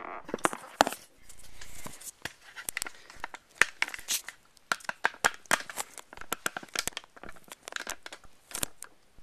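Paper rustling and crinkling as a folded paper instruction booklet is handled and laid flat, with many sharp clicks and knocks throughout.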